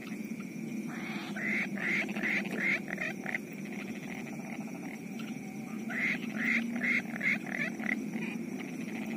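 Frogs calling: two runs of short, quick croaks, about three a second, one starting about a second in and another about six seconds in, over a steady low drone.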